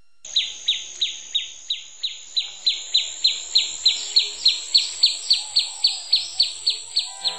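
Nature ambience: a steady high-pitched buzz with rhythmic chirps layered over it, about three short downward-falling chirps a second, starting just after the beginning.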